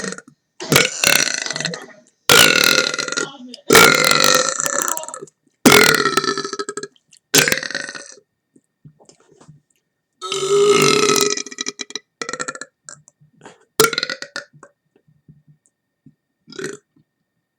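A man belching over and over from deliberately swallowed air: about eight loud burps, most around a second long, with a pause of about two seconds midway; the last few are shorter and fainter.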